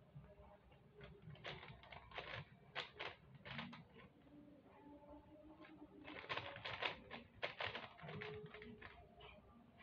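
Plastic puzzle cube being turned quickly by hand: its layers click and rattle in two spells of rapid turns, with a quieter pause between them.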